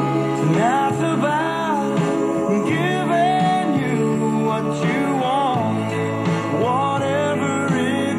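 A song with a sung melody playing from a Zenith K731 AM/FM table radio's speaker, with little deep bass.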